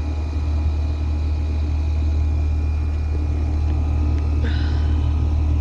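Outdoor central air conditioner condensing unit running: a steady low hum from the compressor and condenser fan. A short high chirp sounds about four and a half seconds in.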